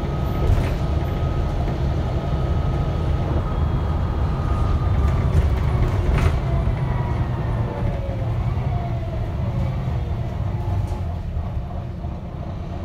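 Volvo B9TL double-deck bus riding, heard from inside the lower deck: the six-cylinder diesel's low rumble under road noise, with a faint whine that falls in pitch in the second half and a couple of short rattles.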